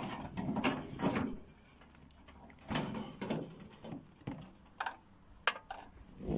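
Irregular clicks, knocks and rustles from hands handling the controls and bodywork of a small home-built ride-on mower; the engine is not running.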